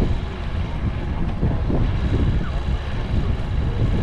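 Steady low rumble with wind buffeting the microphone, and faint voices underneath.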